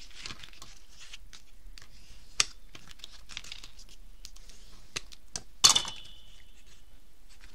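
Cardstock being folded and creased with a plastic bone folder: rustling and scraping of paper being bent and rubbed along its score lines, with a few sharp taps, the loudest a little before six seconds in.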